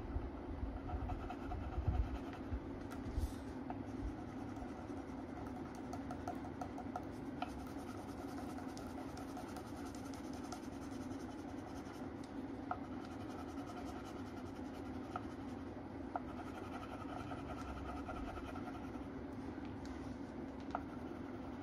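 Colouring pen scratching on paper in quick back-and-forth strokes, over a steady low room hum, with a few dull bumps against the table in the first few seconds.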